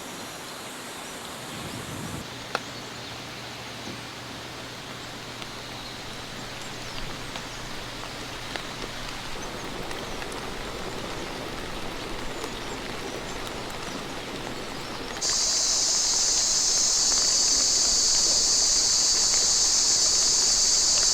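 Outdoor forest ambience: a steady soft hiss with a few faint ticks. About two-thirds of the way through, a loud, steady, high-pitched insect chorus cuts in suddenly.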